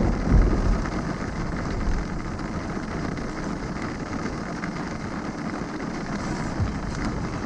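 A car driving through heavy rain on a wet road, heard from inside the car: a steady wash of rain and tyre noise, with a low rumble in the first second.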